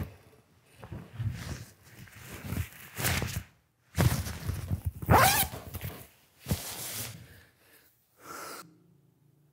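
Rustling of a windbreaker jacket being unzipped and taken off, heard as several short bursts of swishing fabric.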